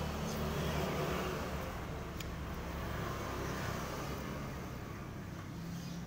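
Steady low background rumble with a motor-like hum, and a single light click about two seconds in.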